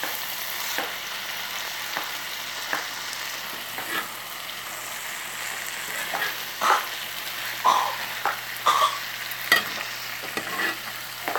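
Sausage and vegetable hash sizzling steadily in a cast-iron skillet, with a metal utensil scraping and knocking against the pan as it is stirred. The stirring strokes come more often in the second half.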